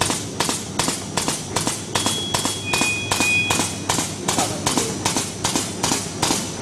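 Side-sealing plastic bag machine running in production: its hot-cutting and sealing knife cycles in a steady mechanical clacking of about four strokes a second.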